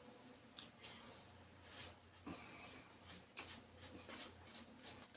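Quiet eating sounds: irregular small clicks from chewing and lip smacks, with a metal spoon scraping a styrofoam takeout box.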